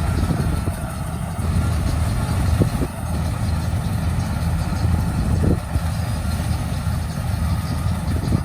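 Paddy harvester running steadily with a low engine rumble.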